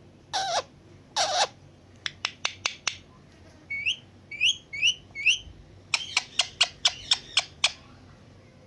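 Indian ringneck parrot calling: two harsh squawks near the start, a quick run of sharp clicks, four short rising chirps, then a fast burst of clicks and squawks.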